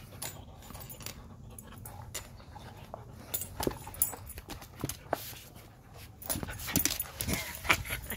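Alaskan husky making small dog sounds while nosing and mouthing at the ground on patio tiles, with a run of short sharp clicks and taps that grows busier and louder over the last couple of seconds.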